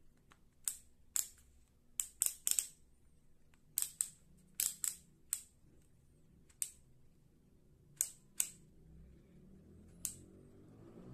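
Bosch GSB 120-LI drill/driver's torque-setting collar turned by hand, its detents giving about fifteen sharp clicks at an irregular pace, some singly and some in quick runs of two to four.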